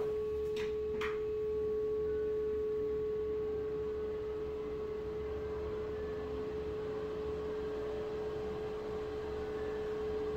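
Delta Breeze bathroom exhaust fan running with a steady, high-pitched hum over a low airflow rumble. Two short clicks of the switch come about half a second apart near the start.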